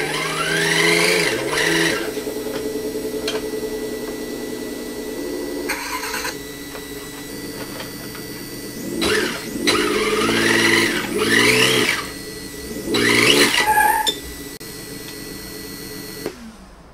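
Simulated engine sound from an RC drift car's electronic sound unit, played through its small onboard speaker: a pitched engine note that revs up and falls back several times with the throttle, then cuts off suddenly near the end.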